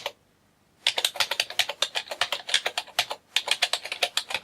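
Typing on a computer keyboard: a rapid run of keystroke clicks, many to the second, starting just under a second in after a short silence, with a brief pause about three seconds in.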